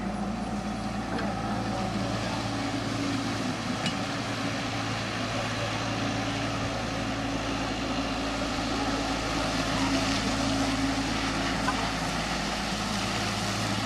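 Caterpillar hydraulic excavator's diesel engine running steadily under load.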